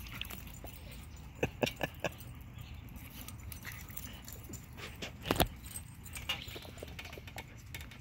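Small dogs playing: sharp clicks and knocks, a quick run of four about a second and a half in and a louder one a little past five seconds, with lighter clicks scattered between.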